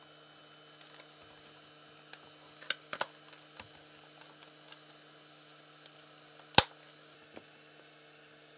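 Scattered clicks and knocks of a black plastic calculator case being pressed together and handled on a workbench, with a few clicks about three seconds in and one sharper, louder click about six and a half seconds in. A faint steady mains hum runs underneath.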